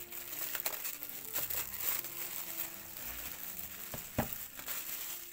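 Plastic wrapping film being peeled off a packaged drawer unit and crumpled by hand, a continuous crinkling and rustling with small crackles. There is a single sharper thump about four seconds in.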